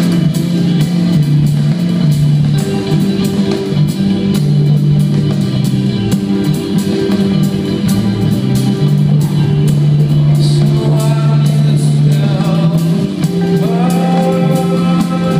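Live band playing in an arena: a repeating bass line under busy drums, with a voice singing over it and a melodic line climbing near the end.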